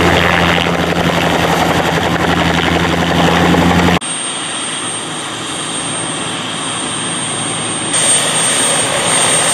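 Light turbine helicopter landing and running on the ground: steady rotor noise with a low blade throb for the first few seconds. After an abrupt cut the throb is gone, leaving a quieter rush of rotor and engine noise with a thin high whine.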